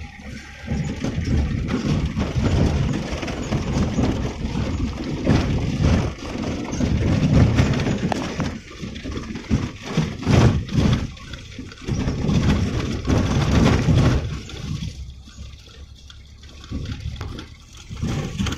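Car heard from inside the cabin driving over a broken, potholed and wet road: uneven rumble of tyres and suspension with jolts and the hiss of wet tarmac, easing off to a quieter stretch near the end.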